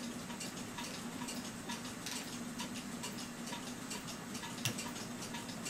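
Clock ticking steadily, about four ticks a second, over a low steady hum, with one sharper click near the end.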